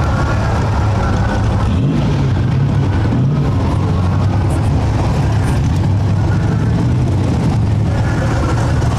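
Drag-racing truck engines idling loudly, a steady low rumble with small wavers in pitch.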